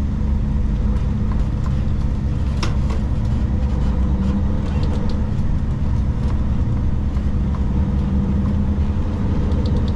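Kenworth K200 cabover truck's Cummins diesel engine running as the truck pulls away slowly, heard from inside the cab as a steady low rumble. A light click sounds a little under three seconds in.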